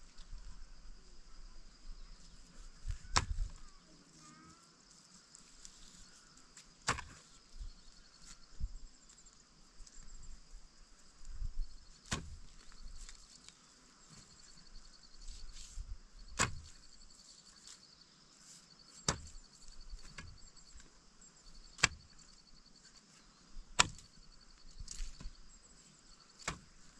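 Sharp single knocks every few seconds at an uneven pace, over a steady high chirring of insects.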